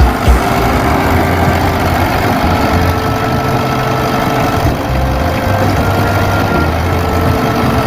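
Backhoe loader's diesel engine running steadily, near idle.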